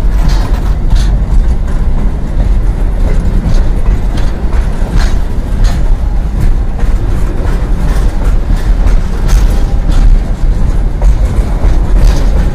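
Loaded container freight train's BLC flat wagons rolling past close by: a loud, steady rumble with irregular clicks of wheels going over rail joints.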